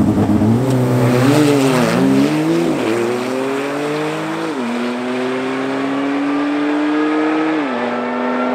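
A Ferrari sports car and a second car launch down a drag strip at full throttle. The engine note rises sharply about half a second in and wavers during the launch. It then climbs steadily, with sudden pitch drops at the upshifts about 3, 4½ and 7½ seconds in.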